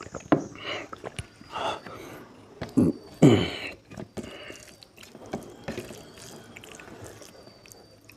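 Close-miked eating sounds: wet mouth smacks and swallows after a drink of water, loudest about three seconds in, then fainter small clicks of fingers working rice and curry on a steel plate.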